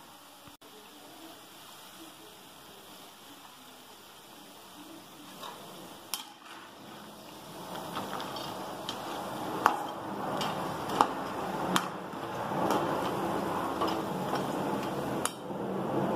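Masala-coated peanuts deep-frying in hot oil in a steel kadai: a soft bubbling sizzle that grows louder from about seven seconds in, as a perforated steel skimmer stirs them. Several sharp clinks of the skimmer against the pan are heard.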